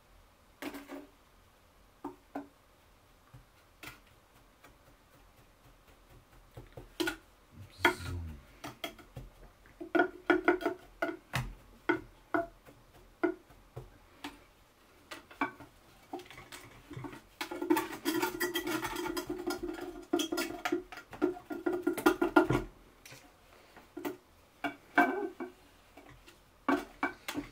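Scraping, tapping and rubbing as sand-clay nest fill is pressed and smoothed inside a small glass formicarium with a CD and fingers. It comes in scattered strokes, with a run of quick scrapes carrying a squeaky tone from about two-thirds of the way in.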